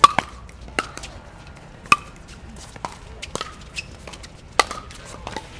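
Pickleball paddles hitting a plastic ball in a rally: about seven sharp pocks at uneven intervals. The loudest comes right at the start, with strong ones about two seconds in and about four and a half seconds in.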